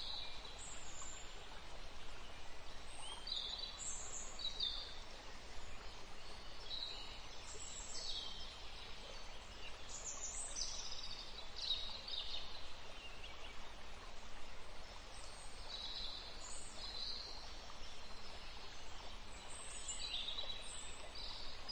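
Faint wildlife ambience: short, high bird chirps scattered every second or two over a steady low hiss.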